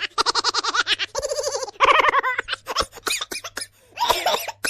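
A silly, cartoonish laughing sound effect: a voice laughing in several bursts of rapid, high-pitched 'ha-ha-ha' pulses, about ten a second, with short breaks between the bursts.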